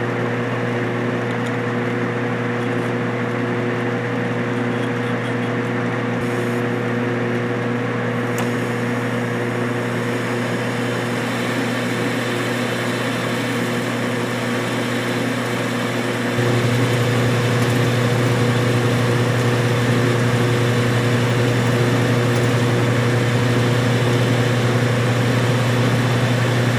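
Metal lathe running under power and taking a turning cut in mild steel with a high-speed-steel cutter and cutting oil: a steady motor and gear hum over a continuous hiss. The low hum steps up louder about two-thirds through.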